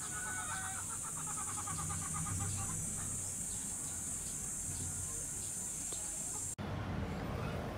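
Farmyard animal sounds: chickens clucking and small bird chirps over a steady high-pitched drone, with a wavering animal call in the first second or so. The sound changes abruptly about six and a half seconds in.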